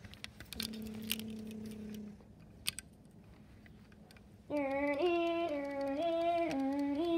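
A child's voice singing a wordless tune that steps up and down between a few notes, starting about two-thirds of the way in and continuing. Before it come light clicks from handling toys and a short steady hummed note.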